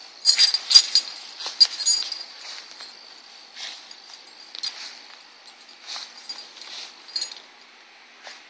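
A small dog's collar tags clinking and jingling as it moves and noses about in grass: a quick run of clinks in the first two seconds, then scattered ones. A faint steady chirring of crickets runs underneath.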